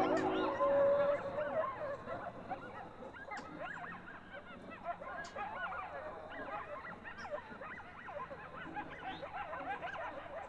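A pack of coyotes yipping and howling together, many overlapping high yips and short wavering howls, loudest at the start and dying down after a couple of seconds.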